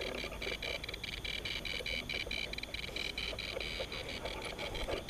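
Night insects, crickets or katydids, chirping in a fast, even pulse of about five chirps a second, with several high tones sounding together.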